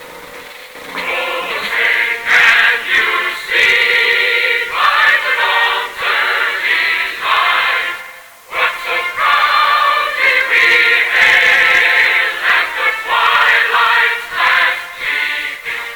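A national anthem sung by a choir, sounding thin and tinny with almost no bass or treble, in long phrases with a short break about eight seconds in.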